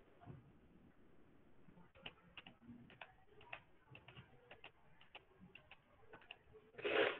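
Light, irregular computer clicks, a few a second, heard through an online call's microphone, with a short louder breathy rustle near the end.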